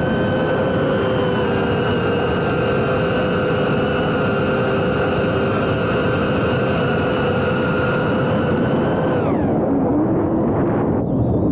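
FPV drone's electric motors and propellers whining at a steady pitch over a rush of air noise. About nine seconds in, the whine falls sharply in pitch and turns uneven.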